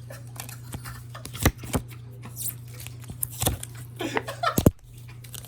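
Foil wrapper of a Pokémon trading-card booster pack crinkling and tearing in a hard struggle to rip it open, with irregular crackles and a few sharp loud snaps.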